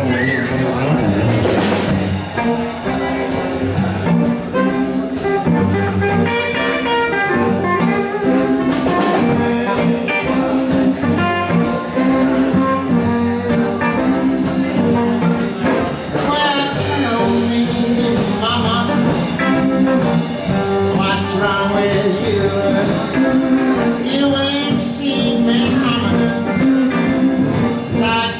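Live band playing electric blues: electric guitars over drums, with a steady beat.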